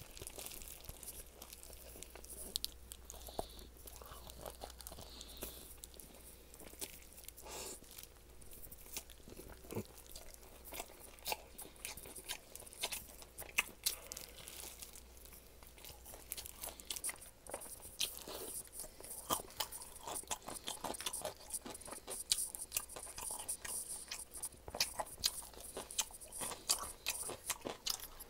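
Close-up crunching and chewing as a person bites into crispy garlic chicken, with many small crackly crunches that come thicker in the second half.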